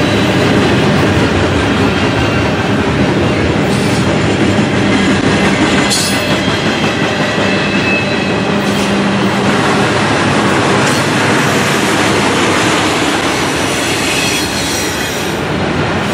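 Double-stack intermodal container cars rolling past close by: a loud, steady rumble of steel wheels on the rails, broken by a few sharp clacks.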